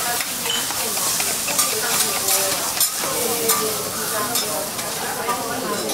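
Okonomiyaki and other food frying on a hot iron teppan griddle: a steady sizzle, with scattered clicks of metal spoons and spatulas on the plate.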